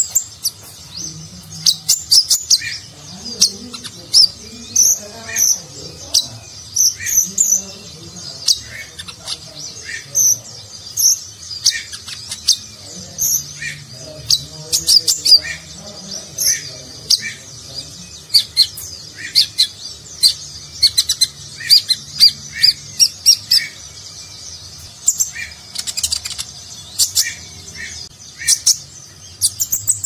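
Male van Hasselt's sunbird (kolibri ninja) singing non-stop in a cage: a fast, unbroken run of sharp, high chips, clicks and short trills, with lower notes mixed in, in a varied song full of borrowed phrases.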